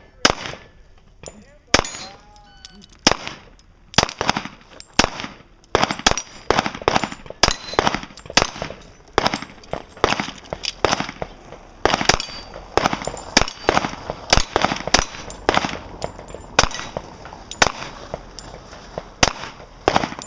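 Handgun fired in a long string of about thirty single shots, one every half second to a second, with brief uneven pauses between groups: a shooter working through a timed match stage.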